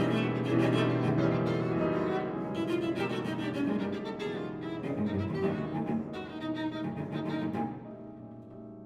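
Live contemporary chamber music from a piano trio: cello and violin bowing together, with the piano in the background. The playing falls to a quieter passage near the end.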